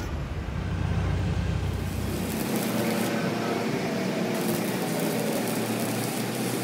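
Steady machine noise with a heavy low rumble that cuts off abruptly about two and a half seconds in, leaving a steady, thinner noise.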